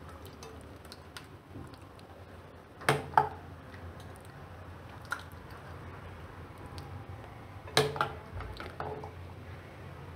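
A metal ladle spooning thick yogurt raita with boondi into a glass bowl, with soft wet squishing plops. The ladle clinks sharply against the bowl in two quick pairs, about three seconds in and again about eight seconds in.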